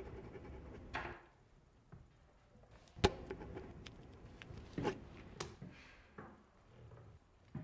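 Pens and paper on classroom desks: scattered light clicks and knocks with a few short rustling strokes. The sharpest click comes about three seconds in.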